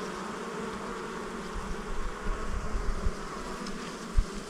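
Honeybees humming steadily around an opened hive. A few low bumps come in the second half, the sharpest near the end.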